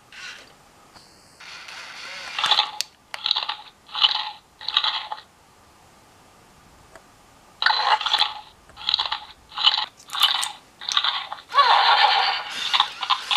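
Zoomer Show Pony robotic toy playing crunchy munching sounds through its small speaker as it is fed its toy carrot. There are two runs of short crunches about one a second with a pause between them, and a longer sound near the end.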